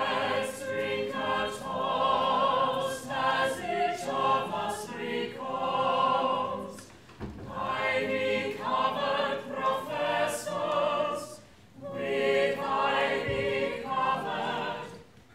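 A large group of voices singing together in chorus, in long sung phrases with short pauses between them.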